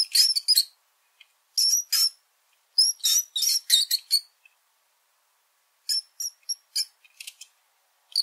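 Mouse squeaking: short, high-pitched squeaks in quick runs of several, about five runs with short silent pauses between.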